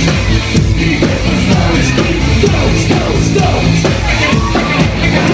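Live rock band playing loud, with electric guitar and bass under a shouted, sung vocal.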